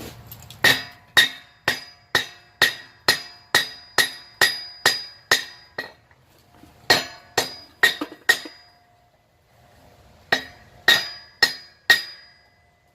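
Hammer blows on a hot mild-steel block worked over the horn of an anvil, each strike ringing the anvil. A run of about a dozen strikes at about two a second is followed, after short pauses, by two runs of four.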